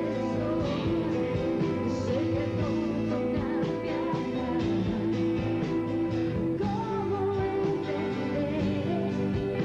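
A rock band playing live: steady chords with a wavering melody line on top.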